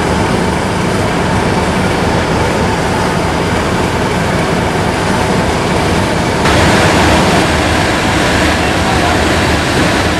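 GWR Hall class 4-6-0 steam locomotive standing with a steady, loud hiss of steam over a low rumble; the hiss grows louder and brighter about six seconds in.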